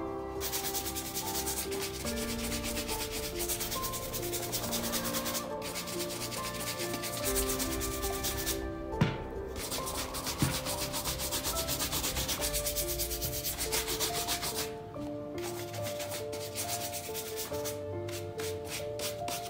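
A bristle shoe brush rubbed briskly back and forth over the leather upper of a dress shoe in rapid, continuous strokes, with a few short breaks. Near the end the strokes slow to separate swipes.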